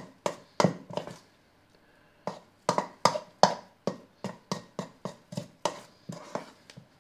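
Spoon knocking and scraping against a stainless steel mixing bowl while stirring a wet beer bread dough, in quick repeated strokes of about three a second, with a short pause a little after the first second.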